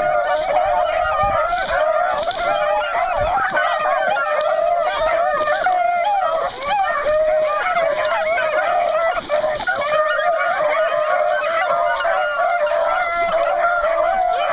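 A pack of beagles baying in full cry, many voices overlapping without a break, as the hounds run a rabbit's trail.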